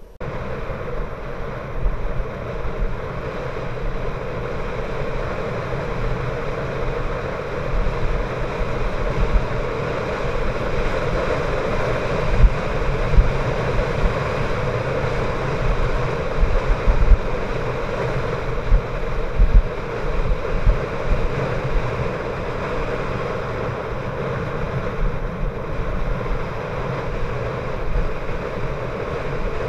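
Wind rushing over the microphone of a camera on a moving bicycle, a steady roar-like hiss with irregular low buffets, mixed with the tyres rolling over the road.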